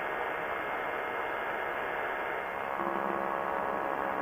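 Steady drone of a Quicksilver ultralight's engine in cruise flight, heard thin and narrow as if through a headset. A steadier low hum joins it about three seconds in.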